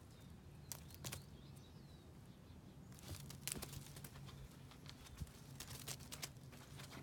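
Faint scuffs and rustles of a cat's paws on dry soil and fallen leaves as it scrambles after a grasshopper, mostly from about three seconds in, with a few faint bird chirps early on.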